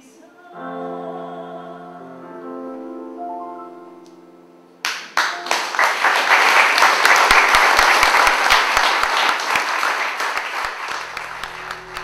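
Closing chords of a song held on a digital piano, then audience applause breaking out about five seconds in and running for several seconds as the loudest sound.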